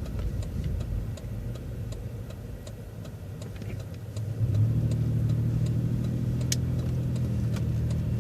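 Transit bus's turn signal ticking steadily, about twice a second, while the engine runs low. About halfway through, the engine pulls up to a louder steady drone as the bus accelerates through a left turn.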